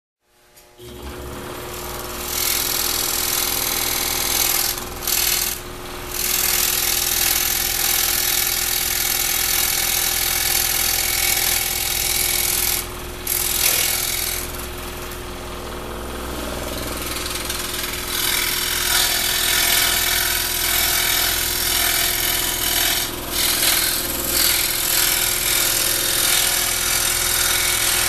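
Scroll saw starting up about a second in, then running steadily as its blade cuts a fretwork pattern in a thin wooden panel, with a few brief dips in the sound along the way.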